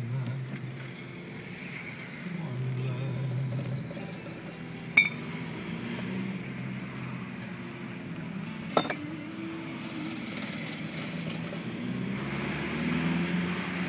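A car driving, heard from inside the cabin: steady engine and road noise. Two sharp clinks, about five and nine seconds in.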